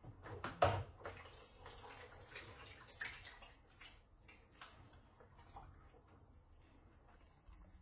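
Soaked kelp being handled in water: wet splashes and drips, with a few sharp knocks about half a second in, the loudest part.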